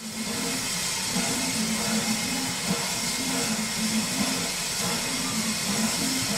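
1920 Baldwin steam locomotive hissing steam steadily, with a low pulsing hum that comes and goes beneath the hiss.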